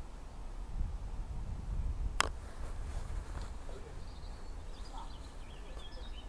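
Faint birds chirping over a steady low rumble, with a single sharp click about two seconds in.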